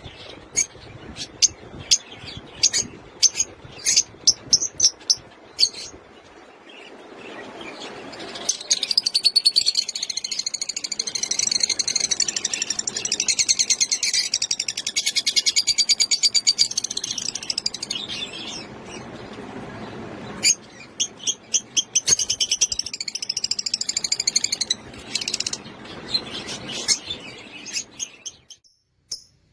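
Lutino opaline lovebirds calling: sharp, separate high chirps, then about eight seconds in a fast, continuous chattering that lasts about ten seconds, then sharp chirps again.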